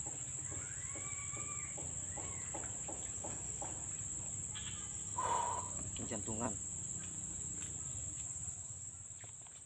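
Outdoor ambience: a steady high-pitched insect drone with bird calls, two arching calls about a second in and another short call about five seconds in. A single spoken word near the end.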